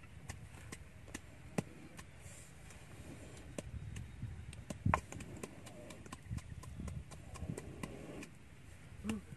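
A series of irregular sharp taps and knocks, a few a second with the loudest about five seconds in, over a low rumbling background.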